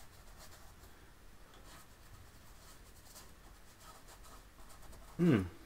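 Paintbrush dabbing and stroking paint onto a canvas, a faint scratchy rubbing. Near the end there is a brief, louder sound that falls in pitch.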